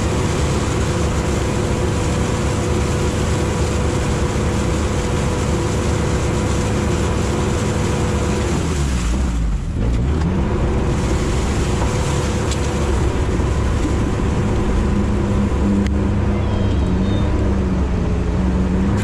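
Sherp amphibious ATV's diesel engine running steadily under load, heard from inside the cab, with the noise of the vehicle moving over ice. About nine seconds in, the revs drop sharply and climb back up.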